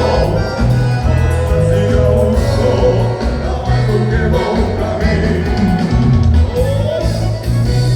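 Live gaucho dance-band music with a male singer over a steady bass line.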